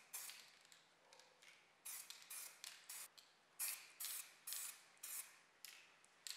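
Aerosol spray can spraying in short hissing bursts, about ten of them, each a fraction of a second long with gaps between.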